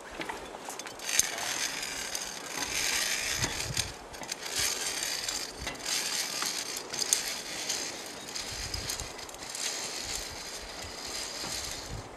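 Metal scraping and clinking from a via ferrata bridge of steel cables and metal rungs as it is crossed, with harness carabiners sliding along the steel cable. The scraping comes in stretches of a few seconds, with a few sharp clicks.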